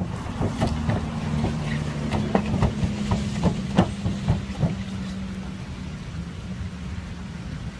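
Irregular thuds and knocks from feet on a car's sheet-metal roof, about a dozen over the first five seconds, then stopping. Under them runs a steady low vehicle hum.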